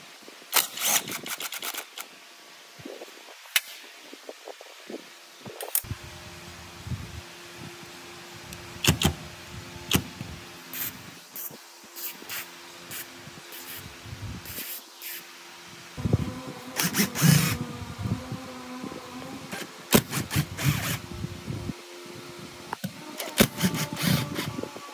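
Metal clinking and clicking from hand tools and machine parts being worked on, in scattered single knocks and short runs of rapid clicks, over a steady low hum.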